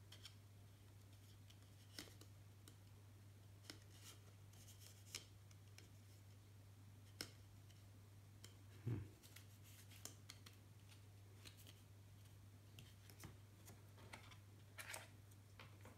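Faint handling of the iPhone's paper and cardboard packaging: a paper sleeve and box insert being folded and tucked into the box tray. Scattered light clicks and paper rustles, with a slightly louder knock about nine seconds in.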